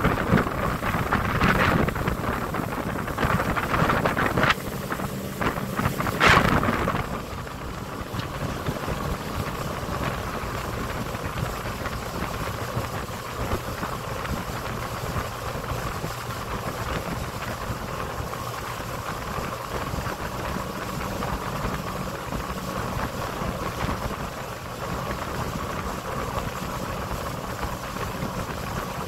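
Wind buffeting the microphone in gusts for the first several seconds, then a steady drone of a small motorboat's engine running under way, with water rushing along the hull.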